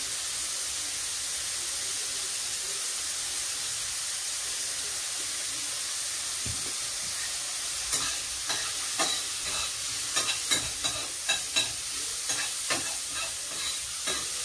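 Mushrooms sizzling in a frying pan, a steady hiss. From about eight seconds in, a utensil scrapes and taps against the pan in quick, irregular strokes as they are stirred.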